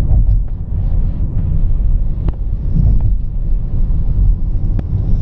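Steady road and wind noise from a car driving at highway speed: a loud, low, uneven rumble with wind buffeting the microphone. A few light clicks come through about two, three and nearly five seconds in.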